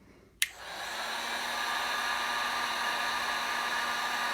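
Heat gun switched on with a click about half a second in, then running with a steady blowing hiss and a low hum.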